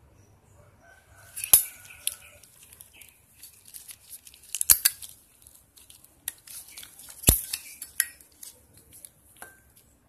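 Zippo 150ZL Black Ice windproof lighter being handled: a few sharp metallic clicks and clinks with softer scraping between, as the case is worked and the chrome insert slides up out of it.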